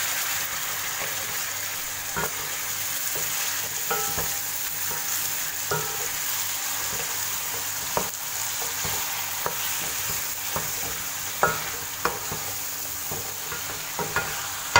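Chicken pieces with ginger-garlic paste sizzling steadily in hot oil in a pan, while a spatula stirs them and knocks or scrapes against the pan every second or two.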